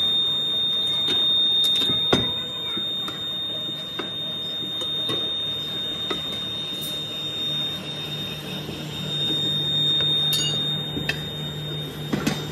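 Steady machine hum with a high-pitched whine running throughout, over scattered light metallic knocks and clicks from steel mold patterns and flasks being handled on the sand-casting floor.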